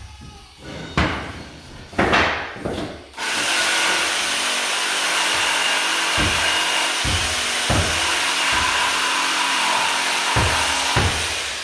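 Cordless drill running steadily for about eight seconds from about three seconds in. Mallet blows on a pneumatic hardwood flooring nailer knock several times before it and thump a few times under it.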